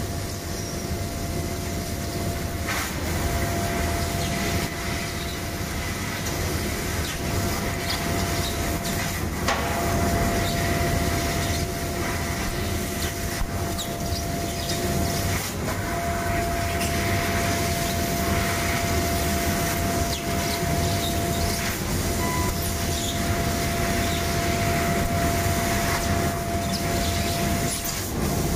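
CNC laser cutting machine cutting stainless steel sheet: a steady rushing machine noise with a low hum, and a steady whine that breaks off briefly about every six seconds.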